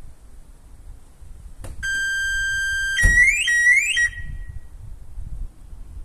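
Car alarm siren triggered by a door being opened. A click, then a steady high tone for about a second, then rising whoops, loudest of all. It cuts off suddenly about four seconds in as the alarm is shut down.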